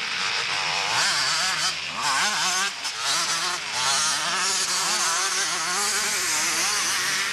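Several two-stroke motocross bikes revving hard as they race past, their engines rising and falling in pitch over and over and overlapping one another, over a steady hiss.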